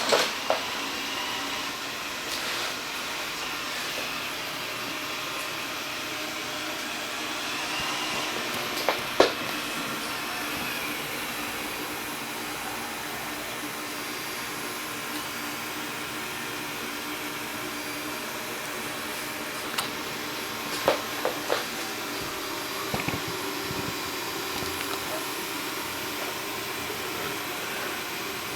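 Xiaomi Mi robot vacuum running steadily, its suction fan and brushes on, as it drives back toward its charging dock after finishing cleaning. A few short knocks sound over it, the loudest about nine seconds in and a small cluster around twenty to twenty-three seconds.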